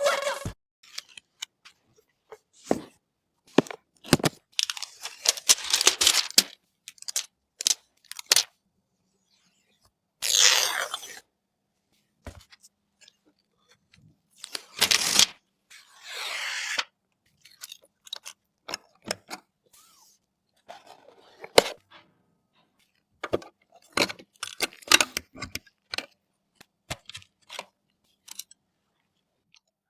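Hands handling PC components and their packaging: scattered clicks and taps, with a few longer rustling or tearing sounds about ten seconds in and again around fifteen to seventeen seconds.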